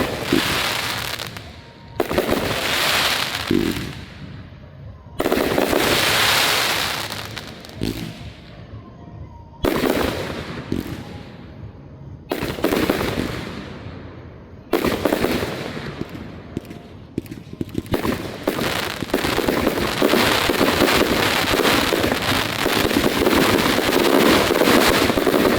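Fireworks going off: a run of sudden bangs every two to three seconds, each trailing off into a few seconds of fading crackle. About two-thirds of the way through, they give way to a dense, continuous crackling and popping that is the loudest part.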